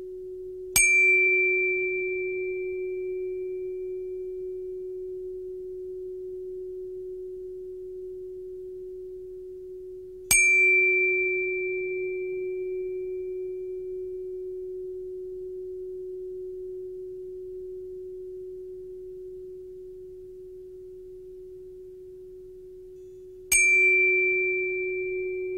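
Electronic soundtrack: a steady low drone tone, struck three times by a sharp metallic attack whose high ringing note fades over a few seconds, like a tuning fork or chime.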